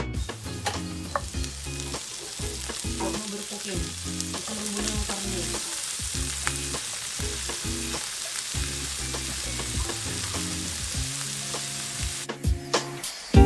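Broccoli frying in hot oil with shallots and garlic in a nonstick pan: a steady sizzle with a few light clicks. The sizzle drops away about a second before the end, giving way to sharper knocks.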